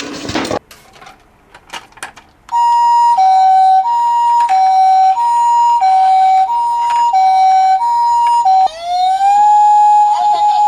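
A hiss that cuts off about half a second in and a few faint clicks, then a Japanese ambulance's two-tone "pi-po" siren alternating high and low about every two-thirds of a second. Near the end it switches to a wailing siren that rises and holds.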